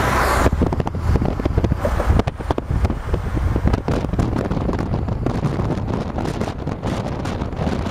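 Wind buffeting the microphone in a moving taxi, in irregular gusts over a low road rumble. A brighter road hiss drops away about half a second in.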